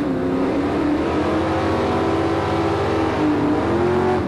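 Drag race cars running at full throttle down the strip, a loud engine note holding high with small dips and rises in pitch.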